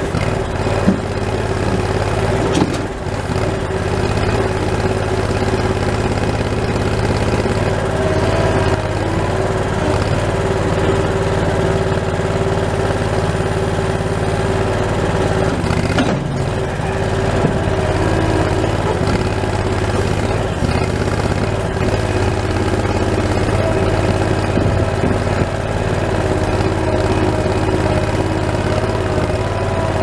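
Skid steer engine running steadily, heard close up from the operator's seat in the cab while the loader raises and tilts the grapple bucket.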